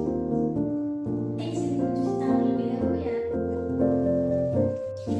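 Background music: a keyboard melody of held notes and chords that change every half second or so.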